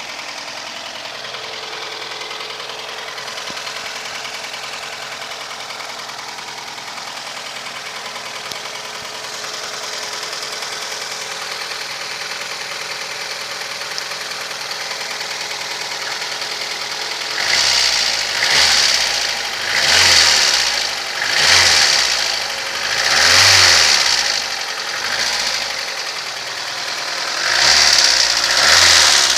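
VAZ-2115 engine idling with a steady rapid ticking knock, then, about two-thirds of the way in, revved in a series of short throttle blips with the speed rising and falling about every second and a half. The knock is one the owner cannot identify; he hears it when coming off the throttle or running without load.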